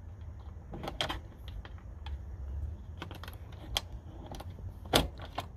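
Bent wire rattling and clicking against the door lock rod of an International ProStar semi truck as it is worked through a hole beside the door handle and flicked up to unlock the door. A run of small, irregular clicks, with sharper ones about a second in and near the end, over a low steady rumble.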